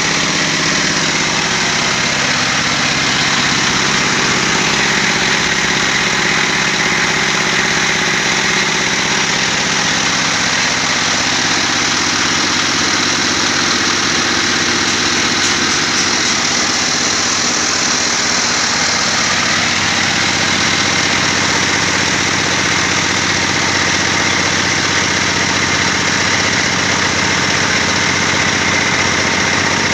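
PJ350 corn cracking machine running steadily under load, a constant belt-driven machine drone mixed with the noise of dried maize kernels being crushed.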